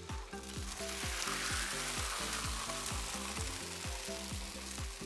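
Consommé-dipped corn tortillas sizzling on a hot flat-top griddle, a steady frying hiss that swells about a second in as more tortillas go down.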